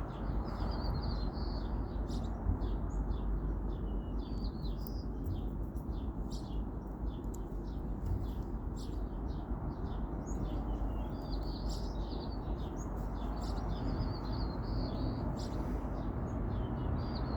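Small songbirds chirping: many short, quick chirps keep coming, over a steady low background noise.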